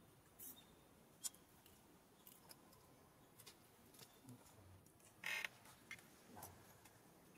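Faint scattered clicks and soft rustles from a young macaque handling its food and then clambering down over concrete and dry leaves, with one short, louder rustle about five seconds in.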